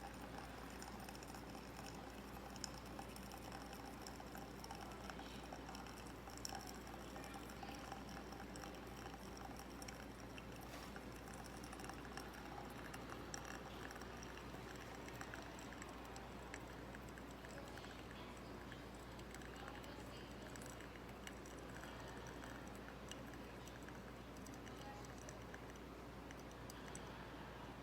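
Faint steady hiss and hum with scattered light clicks and crackles.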